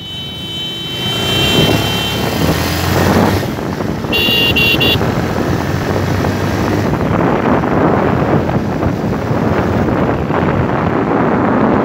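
Motorcycle riding along a road: the engine runs under a heavy rush of wind noise on the microphone. A short horn sounds as a few quick beeps about four seconds in.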